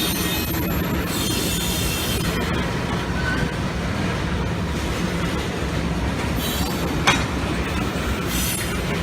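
Freight train cars rolling slowly past with a steady rumble, brief spells of high wheel squeal, and a single sharp clack about seven seconds in.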